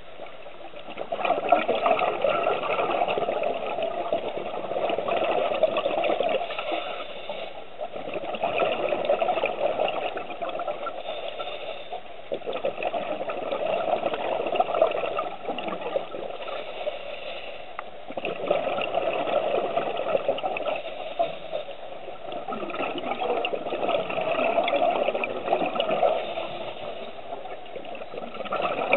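Underwater bubbling and hiss from scuba regulators: the exhaled bubbles crackle and gurgle in waves that swell and fade about every four to five seconds, one swell per breath.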